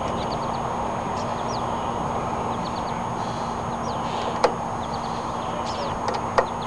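Two sharp clicks of a screwdriver working on a lawnmower's air cleaner housing, about four and a half seconds in and again near the end, over a steady background hum. Small birds chirp briefly throughout.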